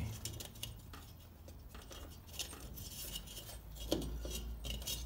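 Light clicks, taps and rustles of a headlight unit and its wiring being handled and pushed into the metal headlight bowl, a few sharper clinks among them.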